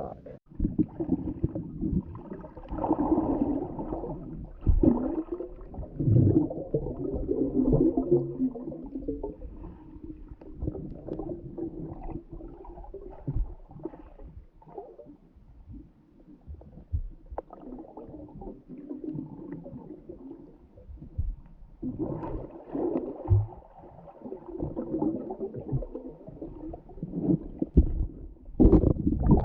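Muffled underwater gurgling and bubbling, picked up by a camera under water. It swells and fades irregularly.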